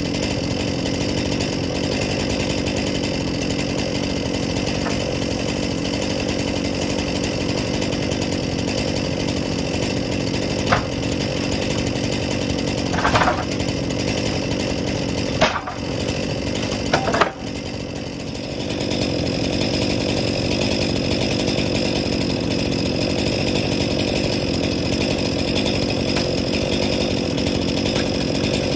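A small petrol engine running at a steady speed, with a few sharp knocks near the middle. Just past halfway it briefly drops and changes pitch, then picks back up and runs steady again.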